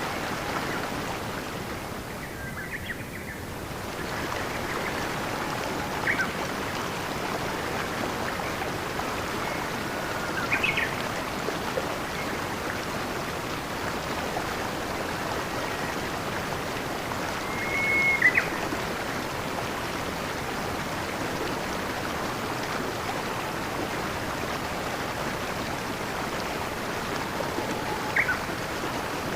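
Steady rushing of a flowing stream, with a handful of brief, high bird chirps and whistles scattered through it.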